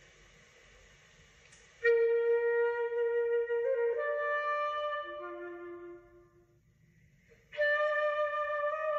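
Flute playing slow, sustained melody notes. After a hushed opening, a held note enters about two seconds in, the line steps up and then drops to a lower note, falls quiet briefly, and a new held note starts near the end.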